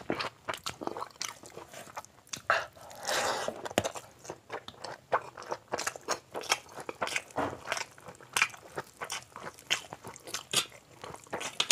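Close-miked chewing of oily biryani and curry eaten by hand: an irregular run of wet mouth clicks, smacks and bites, with one longer noisy stretch about three seconds in.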